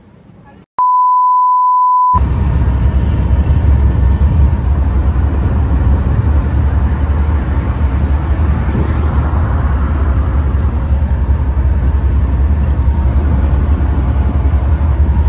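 A single steady electronic beep lasting about a second. It is followed by loud, steady engine and road rumble heard from inside the cabin of a moving passenger bus.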